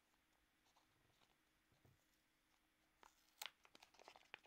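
Mostly near silence, with faint crinkling and one short sharp crackle about three and a half seconds in as a small trailer-hook package is pried open by hand.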